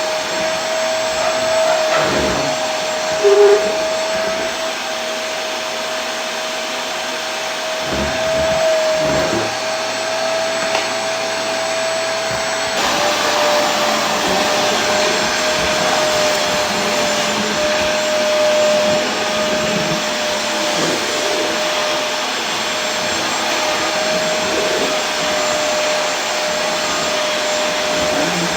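Vacuum cleaner running steadily: an even rushing noise with a constant motor whine, which steps slightly lower in pitch about halfway through. There is a brief louder blip about three seconds in.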